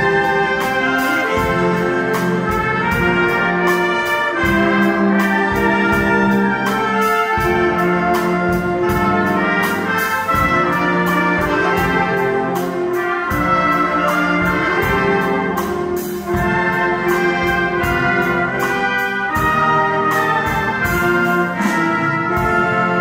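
Concert wind band playing a piece live: brass and woodwinds with timpani and drum kit, over a steady beat.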